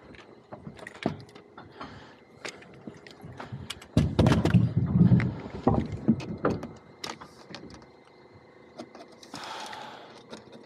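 Work boots thudding and wood knocking on an OSB-sheathed framed wall panel, heaviest about four to six seconds in, among scattered sharp clicks. Near the end comes a short rattle and hiss as a tape measure blade is pulled out along a wooden top plate.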